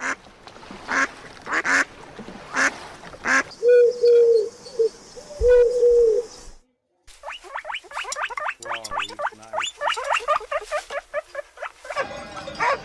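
Ducks quacking: a few sharp calls, then two longer held calls, then after a short pause a fast run of short repeated quacks.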